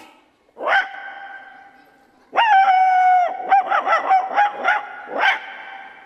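A man imitating a dog: one short bark, then a long held bark about two seconds in, then a quick run of short yapping barks, each with an echoing tail.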